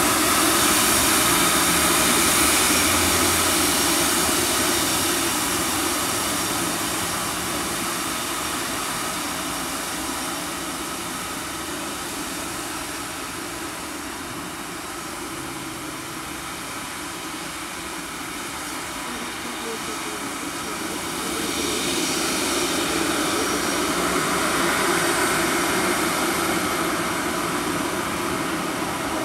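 Airbus A320-214 airliner's CFM56 turbofan engines running with a steady whine as the jet turns around on the runway. The sound fades somewhat through the middle and swells again about two-thirds of the way through.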